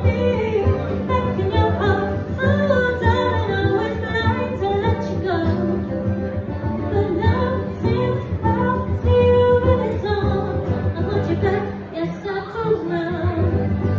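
A woman singing live into a handheld microphone over a backing track with a steady beat, both amplified through a PA speaker.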